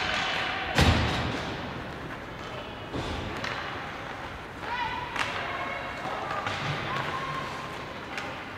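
Ice hockey play echoing in a rink: a loud thud against the boards about a second in with a booming low tail, a softer knock around three seconds, and short shouts from players or spectators.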